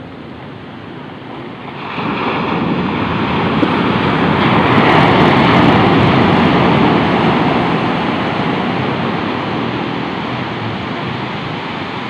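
Ocean surf on a sandy beach: a wave breaks about two seconds in, building to a loud rush of white water midway, then slowly washes out and fades.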